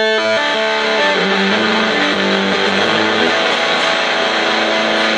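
Electric guitar played through a Buzzsound fuzz pedal with its sustain knob full on: dense, distorted notes that change about a third of a second in and then ring on, held and thick.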